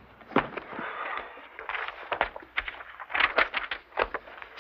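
Books and a binder set down and opened on a wooden table: a string of sharp knocks and rustles, busiest about three seconds in.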